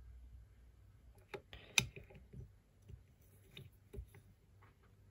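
About half a dozen light, scattered clicks and taps of a flathead screwdriver and a small brass carburettor jet against the metal body of a Toyota 2E carburettor, the loudest just under two seconds in.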